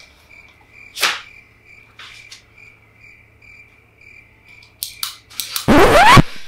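Cricket chirping, a steady high chirp about twice a second, the stock sound effect for an awkward silence. A sharp knock comes about a second in, and near the end a loud noisy burst with a rising tone sweeping through it.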